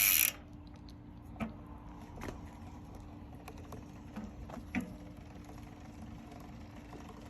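A loud ratcheting buzz from an e-bike's drivetrain cuts off about a third of a second in. Then come faint scattered clicks and light grinding from the Specialized Turbo Levo alloy's drivetrain, turned slowly by hand with the motor off, over a faint steady hum. The owner suspects the chain guard rubbing on grit.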